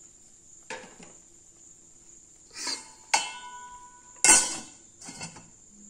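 A stainless steel lid clanking against a metal kadai as it is handled and set on the pan: about five knocks, one ringing on briefly about three seconds in, the loudest clank a little after four seconds.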